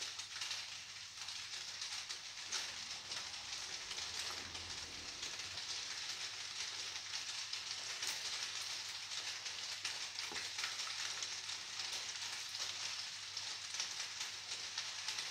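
Steady hiss of rain falling, with a few faint ticks of chewing as a slice of pizza is eaten.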